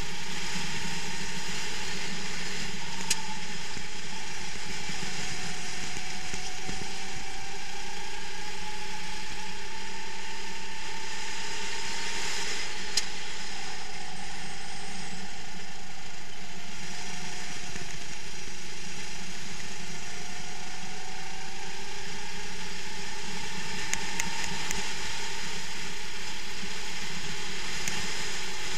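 Racing kart engine heard from the onboard camera while lapping: its note sinks and climbs several times as the kart brakes for corners and accelerates out, over a steady rush of wind and vibration. A few sharp clicks or knocks stand out along the way.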